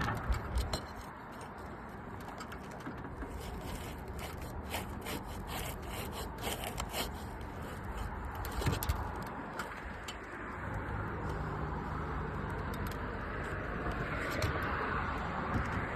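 Roof shingles being worked loose by hand: irregular scraping, rubbing and small clicks, busiest in the first half. The shingle is stiff and resists lifting, a sign that it is not pliable enough for repair.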